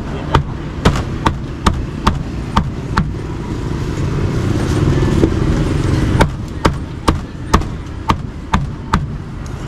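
Meat cleaver chopping grilled duck on a thick chopping block: a run of sharp chops about two a second, a pause of about three seconds, then a second run of chops. Low traffic rumble underneath.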